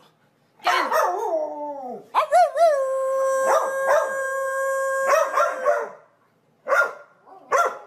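Dog howling during rough play: a first howl sliding down in pitch, then one long, steady howl of about three seconds that trails away, followed by two short barks near the end.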